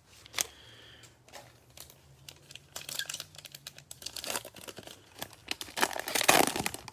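A plastic trading-card pack wrapper crinkling and being torn open, with dense crackling that gets louder near the end.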